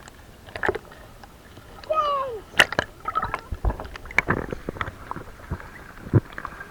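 Children splashing in a shallow river: irregular sharp splashes and sloshes of water, with a child's brief cry falling in pitch about two seconds in.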